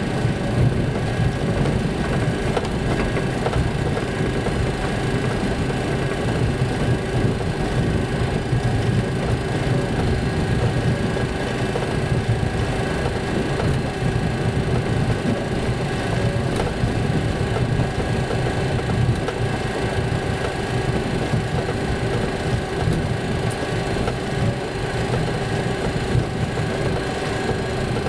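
Cockpit noise of an MD-80 airliner rolling along the runway: a steady low rumble from the wheels and engines, with a constant hum over it.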